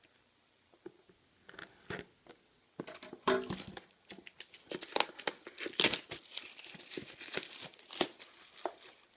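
Plastic wrapping being torn open and crinkled by hand while unwrapping a sealed trading-card box: scattered crackles at first, then a dense run of crinkling and tearing.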